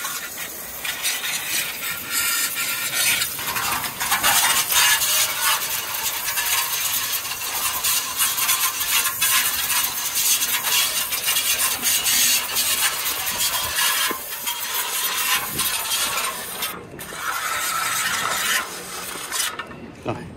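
Water spraying from a nozzle onto the solar water heater's metal parts as they are rinsed clean: a steady crackling hiss with a couple of brief breaks, stopping about a second before the end.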